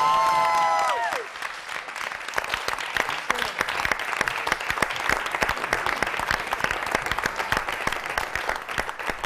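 A held final sung note of the song cuts off about a second in. Then a studio audience applauds steadily.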